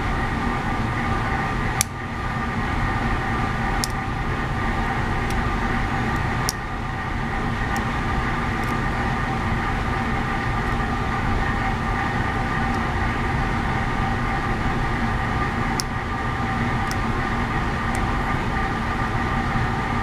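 Steady machinery drone with several constant hum tones, the background running noise aboard a ship. A few faint, sharp clicks of picking tools working the pins of a dimple lock.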